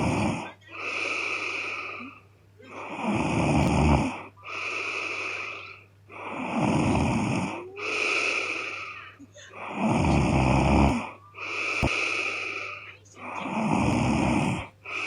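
A woman snoring loudly in her sleep: four rough, rattling snores, each followed by a breathy breath, in a steady rhythm of about one snore every three and a half seconds.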